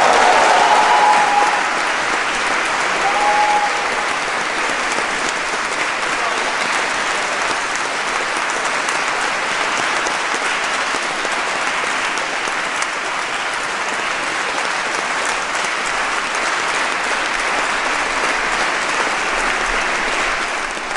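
A large audience applauding steadily after a performance, with a couple of brief shouts in the first few seconds.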